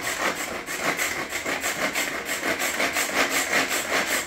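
Hand-pulled manual food chopper being worked over and over, its blades chopping onions, in a quick even rhythm of about four strokes a second.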